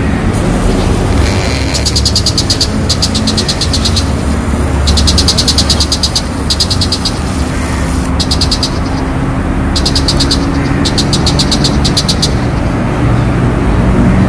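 A shrike, the cendet monyet, calls in repeated bouts of fast, even ticking chatter, roughly ten ticks a second and about a second per bout, with short pauses between bouts. A steady low rumble runs underneath.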